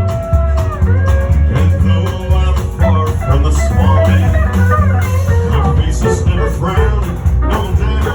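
Live honky-tonk country band playing an instrumental break: a guitar lead with sustained bending notes at first, then quicker runs of notes, over bass and drums keeping a steady beat.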